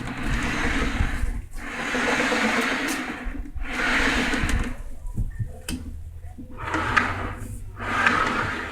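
Skateboard bearings rolling along aluminium angle rails as the CNC machine's X/Y carriage is pushed back and forth by hand, a rolling rumble in about six one-to-two-second strokes.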